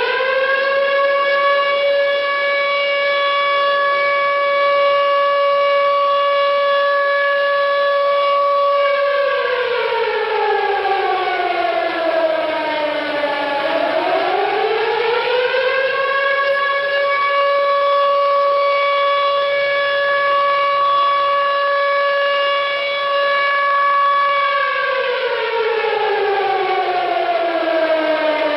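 Tornado warning siren sounding a wail: the pitch rises and holds steady for several seconds, falls away, rises and holds again about halfway through, then falls again near the end.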